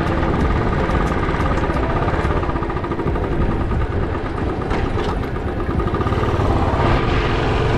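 Motorcycle engine running steadily while riding, under a continuous rushing noise, with a faint pulsing tone in the middle of the range.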